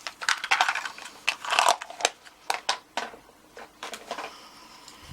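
Small metal tools clinking and rattling as they are picked through and handled, a quick run of clicks and clatters in the first three seconds, then only a few light ticks.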